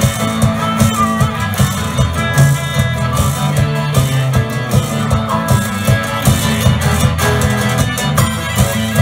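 Live blues band playing an instrumental passage: electric and acoustic guitars with drums keeping a steady beat.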